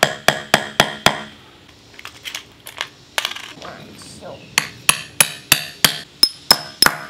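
Small hammer striking a steel rivet setter to set rivets through a leather sheath on a wooden block. The taps are sharp and metallic, about four a second, coming in runs with short pauses between them, and the later taps ring.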